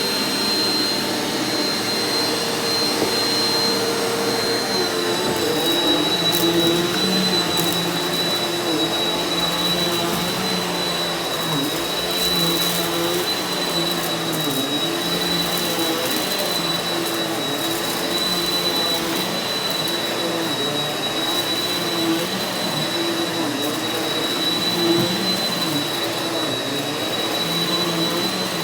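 Eureka NEU180B Power Speed upright vacuum cleaner running steadily over carpet, with a high motor whine. The lower hum dips and recovers every second or two as the load on it changes.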